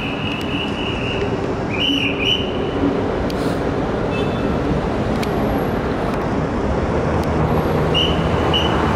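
Steady urban traffic noise, with a few short high squeals near the start, about two seconds in and near the end.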